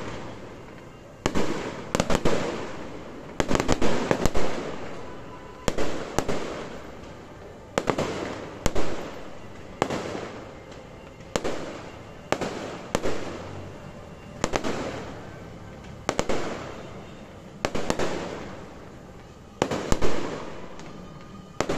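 Aerial firework shells bursting one after another: sharp bangs every second or two, some in quick pairs, each followed by a rolling echo that dies away.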